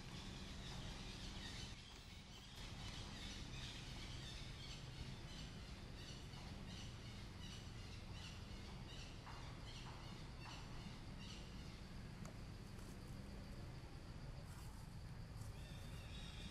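Faint outdoor ambience: a steady low hum under a busy layer of insects and distant bird calls.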